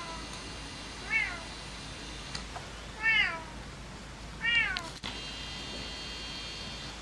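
A domestic cat meowing three times, each meow rising then falling in pitch.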